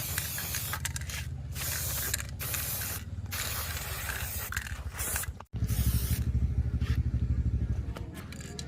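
Spray hissing in repeated bursts of about a second over a steadily throbbing motor. After a sudden break about halfway, the motor's throb carries on alone, louder and pulsing evenly.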